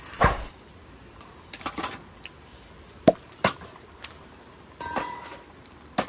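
Tableware being set down one piece after another on a wooden camp table: a plate, a stainless steel tumbler, a beer can and a glass bottle. A string of separate knocks and clinks, one with a short ringing tone about five seconds in.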